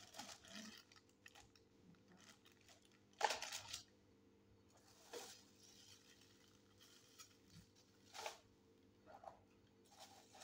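Plastic packaging crinkling and rustling in short, irregular bursts as hands handle bagged accessories, the loudest burst about three seconds in, over a faint steady hum.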